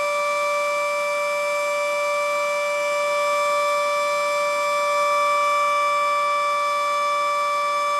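Federal Sign & Signal Model 7B outdoor warning siren sounding its steady alert tone at a constant pitch, swelling slightly louder about five seconds in.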